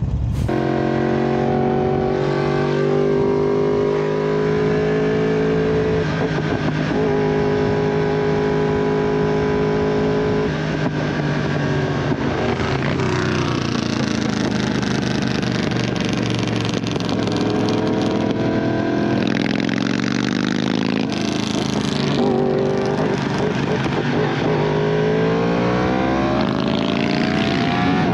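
Sport motorcycle's engine running at highway speed, heard from the rider's position: a steady engine note for about the first ten seconds, then the revs falling and rising several times as the rider eases off and accelerates.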